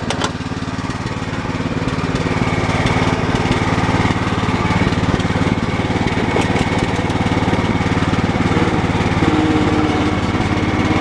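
Cub Cadet 1018 lawn tractor engine running steadily, a little louder over the first few seconds, as the tractor is taken for a test ride.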